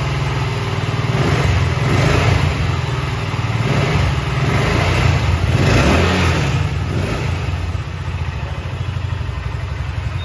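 BSA Gold Star 650 motorcycle's single-cylinder engine running, revved up twice, about two seconds in and again around six seconds in, then settling back to a steady idle near the end.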